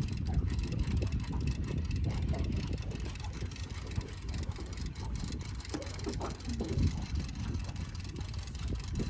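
Small outboard motor idling on the boat, a steady low rumble.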